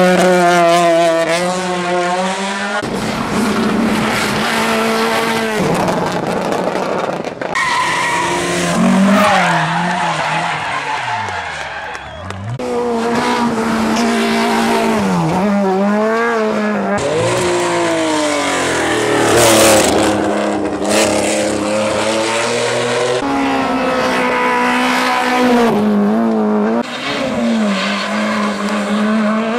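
Hill-climb rally cars driven flat out one after another, engines revving high and dropping back at each gear change, so the pitch swoops up and down repeatedly. The sound jumps abruptly from one car to the next several times.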